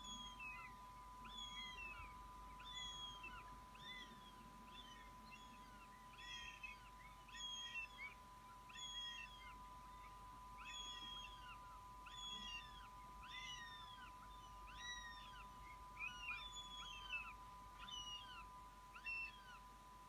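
Young northern goshawks calling over and over, a whining call that rises and falls, repeated roughly every half second to a second. These are the food-begging calls of fledged young at the nest.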